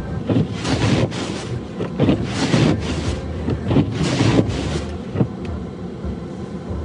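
Snow shovel scraping over packed snow in a run of short, rough strokes, several a second for about five seconds, ending with a sharp knock of the blade.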